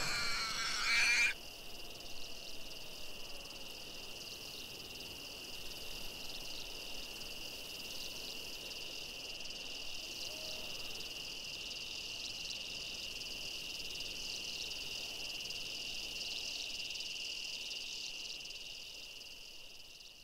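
A steady, high-pitched chorus of night-calling frogs or insects, made of fine continuous trilling, fades out near the end. In the first second a brief cry with pitched tones is heard, which is louder than the chorus and cuts off suddenly.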